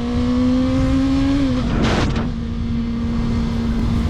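Sport bike engine running at a steady pitch while riding, climbing slowly and then dropping slightly about a second and a half in, over a constant rush of wind on the microphone. There is a brief whoosh about two seconds in.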